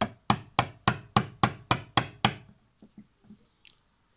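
Hammer blows on a steel rod held against a wardrobe-door roller's axle pin, knocking at the pin to free the wheel from its steel bracket: nine quick strikes about three a second, then a few lighter taps.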